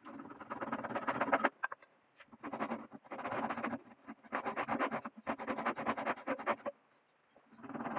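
Rough scraping on wood in repeated strokes, each lasting about half a second to a second and a half, with short pauses between.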